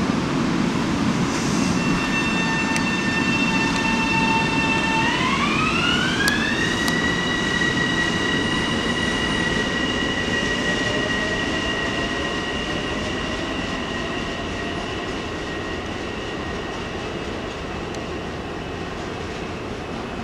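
LIRR M7 electric multiple-unit train pulling away. Its electric propulsion gives a steady whine that glides up in pitch about five seconds in, then holds, while a lower motor whine rises slowly with speed over the rumble of the wheels. The sound fades gradually as the train draws off.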